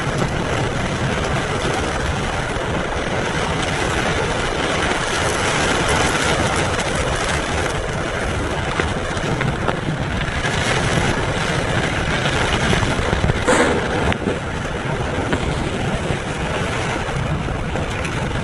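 Heavy rain on a moving car, heard from inside the cabin as a steady rush, mixed with tyre noise on the wet, flooded road. A brief sharper click about thirteen and a half seconds in.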